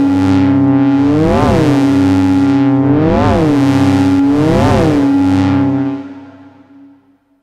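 Dreadbox/Polyend Medusa hybrid synthesizer holding a sustained, bright drone note. A sweep makes the tone swoop up and back down four times, about every second and a half to two seconds. The sound fades away about six seconds in.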